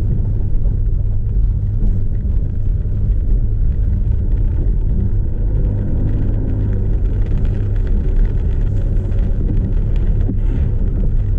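Land Rover Freelander 2's 2.2-litre TD4 diesel engine and tyres giving a steady low rumble, heard from inside the cabin while driving slowly.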